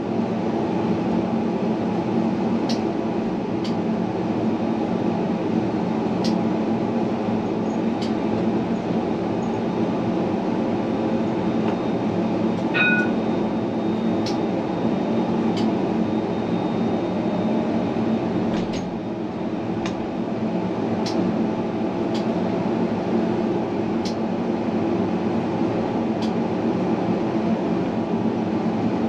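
Tram running along its rails: a steady rolling rumble, with sharp clicks every few seconds. A short electronic beep sounds about 13 seconds in.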